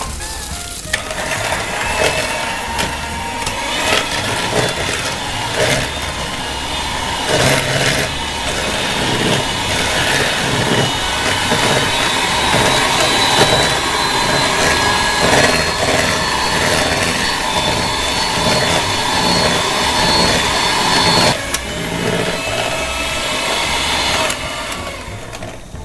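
Philips electric hand mixer running steadily, its beaters whisking eggs and sugar in a plastic bowl until pale and fluffy, with light clicks of the beaters against the bowl. The motor starts about a second in and breaks off briefly near the end before running on.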